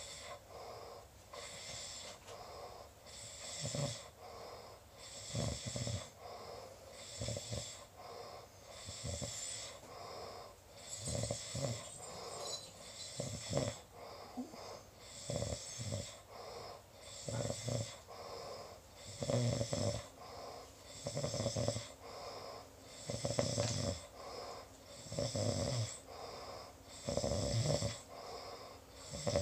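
Snoring in a steady rhythm: a rough snore about every two seconds, with breathy hiss between the snores.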